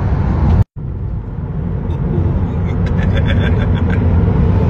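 Road and tyre noise inside the cabin of a Tesla electric car at speed: a steady low rumble with no engine note. It cuts out completely for a moment under a second in, then carries on as before.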